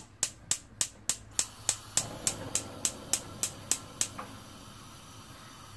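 Gas stove burner's electric igniter clicking rapidly and evenly, about three times a second. The burner catches with a soft hiss of gas flame about two seconds in, and the clicking stops about four seconds in.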